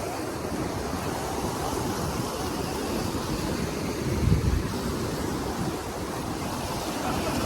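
Ocean surf washing onto a beach, with wind buffeting the microphone; a louder low rumble comes about four seconds in.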